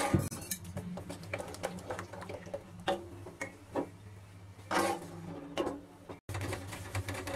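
Wooden spatula stirring and scraping a thin besan curry in a steel kadhai, with irregular clicks and scrapes over a steady low hum. It opens with a splash as a little water is poured into the curry.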